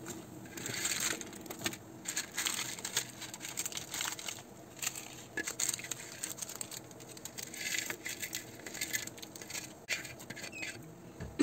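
Small plastic seasoning sachets crinkling and rustling as they are handled and torn open, with scattered light scrapes and clicks, in irregular patches.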